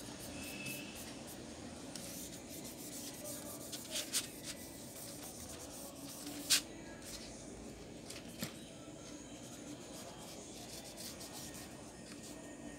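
Soft rubbing and scratching of a tissue wiped with alcohol over the plastic and circuit board inside an opened laptop, cleaning off sticky spilled oil. A few sharp clicks from the laptop parts being handled, the loudest about six and a half seconds in.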